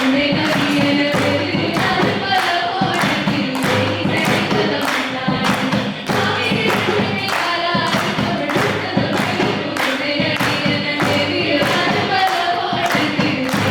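Live devotional music: a group of voices singing over a steady percussion beat of about three strokes a second.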